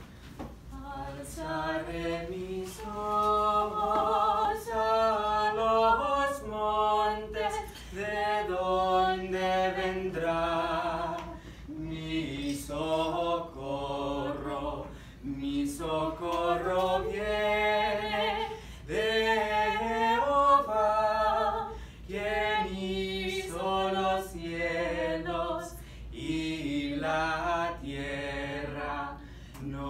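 A woman and a man singing a duet unaccompanied, holding long notes with vibrato.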